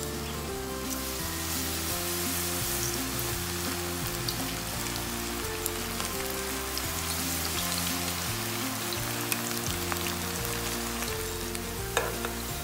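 Battered vegetable fritters deep-frying in hot oil in a cast iron pan: a steady sizzle with scattered crackles. Background music plays underneath, and there is a sharp metal tap from the tongs near the end.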